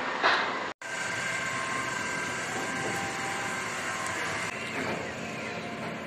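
Ferris wheel machinery running, a steady mechanical hum and rumble with faint steady tones, heard from the gondola. A short louder sound comes just before the sound drops out for a split second under a second in.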